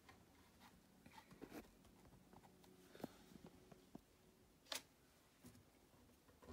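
Near silence with faint handling noises: soft rustles and small clicks as hands work painted fabric and hair on a sculpted figure, with one sharper click about three-quarters of the way through.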